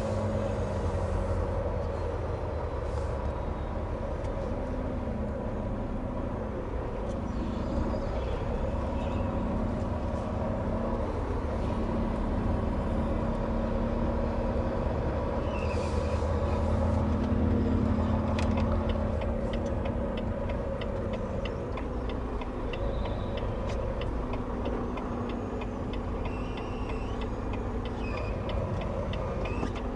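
A 2020 Volvo VNL 860 semi-truck's diesel engine running at low speed, heard from inside the cab, its hum swelling and easing. About two-thirds of the way in, a steady rapid ticking starts and keeps going.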